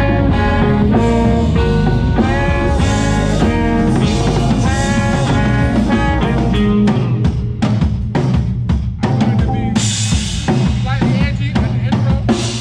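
A band playing: drum kit with bass drum and snare rimshots under a melodic line of sustained, bending pitched notes. From about ten seconds in, a brighter cymbal wash joins the drums.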